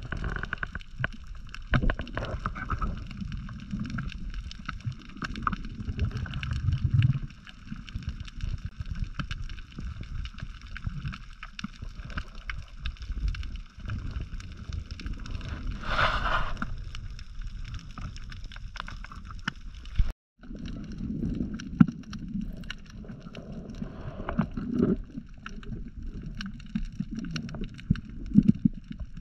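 Underwater audio from a diver's camera: muffled low rumbling and sloshing of water moving around the camera housing, under a faint steady high whine. About halfway through comes a brief hissing burst, and a little later the sound drops out for a moment.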